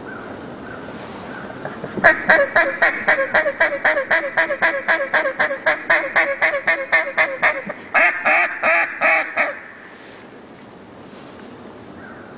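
A hunter's duck call blown in a long, fast run of quacks, about four a second, starting about two seconds in; it ends with a few louder, longer notes and stops about three seconds before the end.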